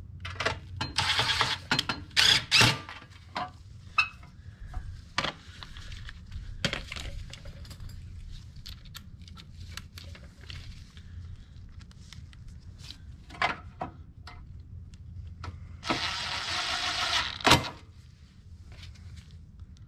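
Hand-tool work on a small engine's sheet-metal heat shield: scattered metallic clicks, clinks and knocks as screws are fitted and driven. A steady noisy stretch of about a second and a half comes near the end.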